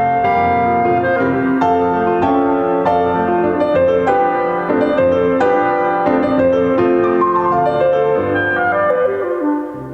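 Classical piano music played back through hi-fi loudspeakers, Sonus Faber Venere 3.0, driven by an Accuphase E270 integrated amplifier. The level dips briefly near the end.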